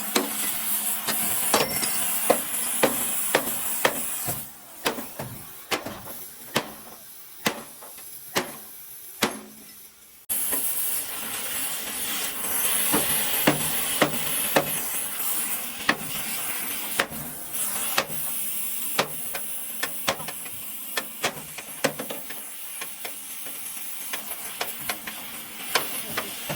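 Repair-shop work on a truck: irregular sharp knocks like hammer blows over a steady hiss. The sound quietens about four seconds in and jumps back abruptly about ten seconds in.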